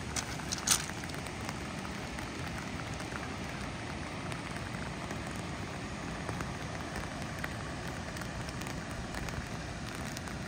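Steady rain with many small drops pattering on an umbrella held just above the phone, and one sharper tap about 0.7 s in.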